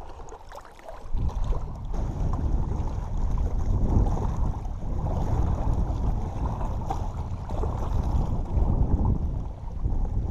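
Wind buffeting the camera microphone, a loud steady rumble that starts about a second in.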